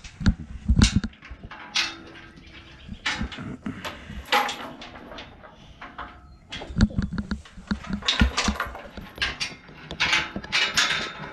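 Irregular knocks, rattles and light metallic clatter from a steel livestock pen gate being handled, with a few heavy thumps about a second in.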